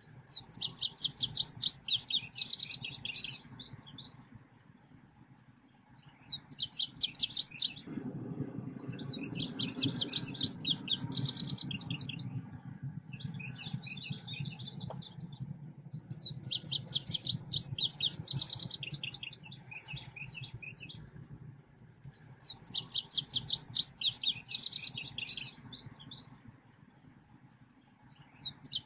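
Recorded song of a selendang biru bird used as a lure call: bursts of rapid, high, chattering trills, each lasting a few seconds, repeated about every five to seven seconds. A steady low hum runs underneath.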